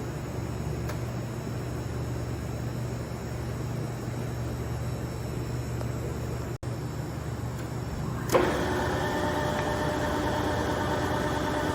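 LeBlond Regal gap-bed lathe running on test: a steady low machine hum, then about two-thirds of the way through a sudden clunk, after which a louder whine of several steady tones carries on.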